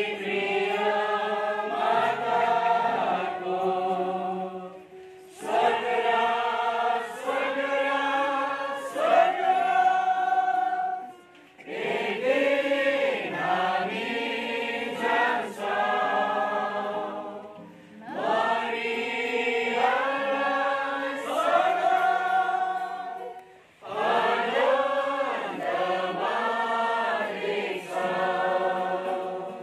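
A congregation sings a hymn with acoustic guitar accompaniment, in sung phrases of about six seconds with short breaks between them.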